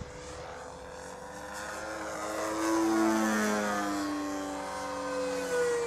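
Model aerobatic plane's MLD 35cc petrol engine turning a 20 x 8 propeller in flight, its pitch shifting with throttle changes. It grows louder to a peak about halfway through as the plane passes close, then eases off.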